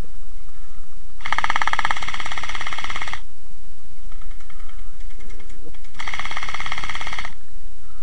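Electric gel blaster firing on full auto in two bursts, the first about two seconds long and the second just over a second, starting about a second in and about six seconds in. Each burst is a fast, even buzzing rattle of the motor and gearbox cycling.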